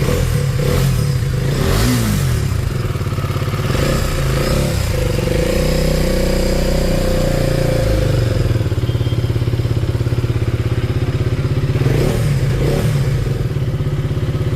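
KTM Duke 250 single-cylinder engine running and revved up and down three times, with a mechanical noise that is the sign of noisy tappet shims, a loose timing chain and worn valves and piston.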